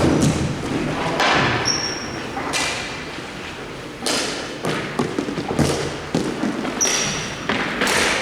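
Ice hockey play on the ice: a run of thuds and scraping strokes from sticks, puck and skates, with a sharp hit right at the start and more hits about every second or so.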